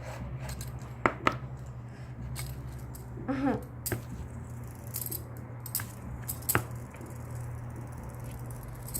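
Scattered clicks and rattles as a fidget spinner's plastic packaging is opened and the spinner handled, over a steady low hum.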